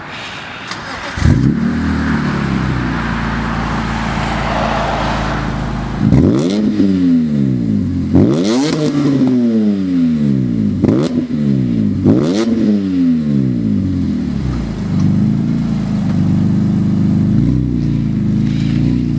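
2006 BMW M3's 3.2-litre inline-six revving through a custom Magnaflow straight-pipe exhaust while parked. A quick blip about a second in, then four sharp revs between about 6 and 13 seconds, each climbing and dropping straight back, before it settles to a steady idle.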